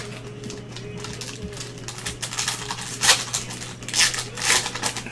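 Trading card packs being handled: wrappers crinkling and cards rustling in several short bursts in the second half, over a faint steady hum.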